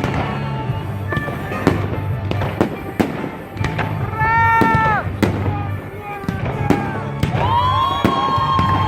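Fireworks display: a quick succession of sharp bangs and crackles, with whistling tones held for about a second around the middle and again for about two seconds near the end.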